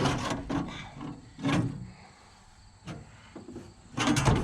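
Several separate knocks and scrapes of tools and metal parts being worked by hand, with a busier clatter near the end, as a bearing assembly is worked loose on a combine during repair.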